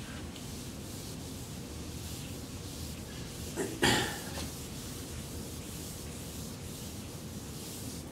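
Whiteboard eraser rubbing across a whiteboard, wiping off the marker drawing, with one short, louder burst about four seconds in.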